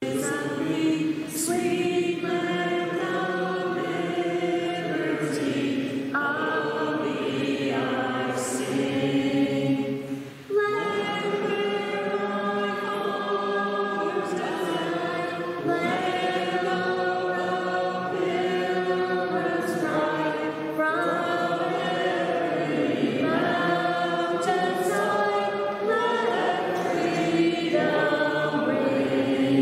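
A choir singing unaccompanied, a sacred hymn or chant in sustained notes, with a short break between phrases about ten seconds in.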